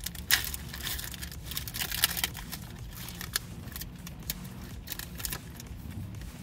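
Foil wrapper of a Pokémon TCG Chilling Reign booster pack crinkling and tearing as it is opened by hand, an irregular run of sharp crackles.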